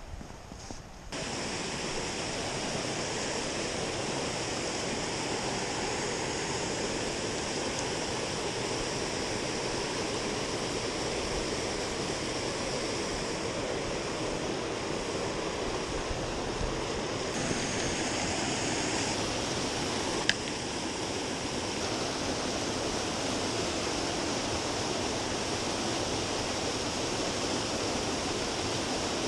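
Steady rush of water pouring over a small waterfall. A single sharp click about twenty seconds in.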